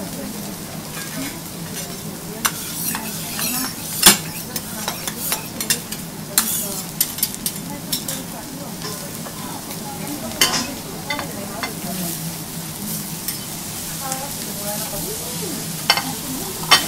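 Wagyu beef steaks sizzling on a steel teppanyaki griddle: a steady frying hiss broken by scattered sharp pops and clicks.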